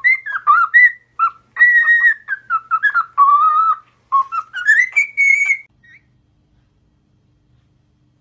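A parrot whistling a quick tune of short notes that glide up and down, stopping about two-thirds of the way through.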